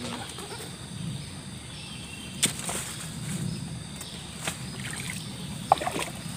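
Shallow river water sloshing around the legs of someone wading, with a few sharp knocks from handling gear about two and a half, four and a half and almost six seconds in.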